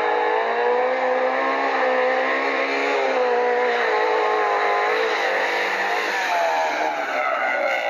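A small hatchback race car's engine running hard at high revs as it climbs, its pitch wavering with the throttle, then dipping and rising again about six seconds in.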